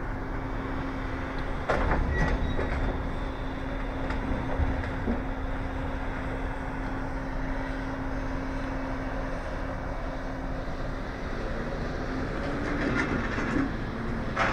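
A 600-horsepower Freightliner Coronado semi's diesel engine runs steadily under load while towing a string of railroad cars, whose wheels rumble on the track. There is a single clank about two seconds in, and the engine's pitch shifts near the end.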